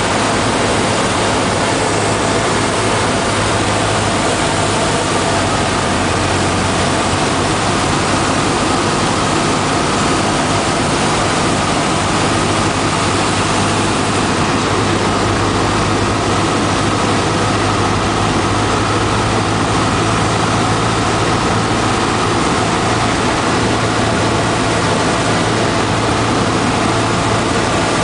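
Single-engine light aircraft's piston engine and propeller droning steadily, heard inside the cockpit with airflow noise, at reduced power on approach to landing.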